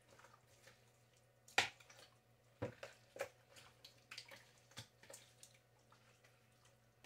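Hand rubbing seasoning into raw chicken pieces in a plastic bowl: irregular wet squelches and light knocks against the bowl, the sharpest about one and a half seconds in.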